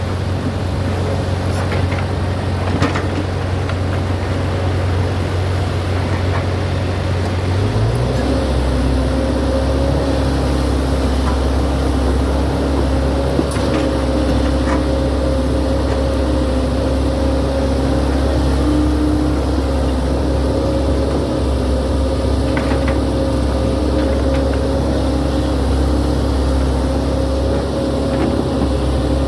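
Sany excavator's diesel engine running steadily. About eight seconds in its note changes and a steady higher whine joins it, with a few faint knocks here and there.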